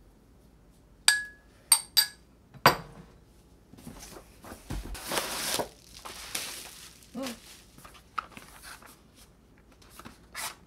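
A spoon clinks against a ceramic mug four times in quick succession, the first clink with a brief ringing tone. Then comes a longer crinkling rustle of a foil bubble-wrap mailer being handled, with lighter packaging rustles after it.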